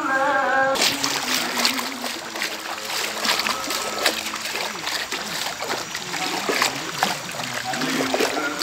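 People wading through knee-deep flood water, splashing and sloshing with each step in an uneven run of splashes.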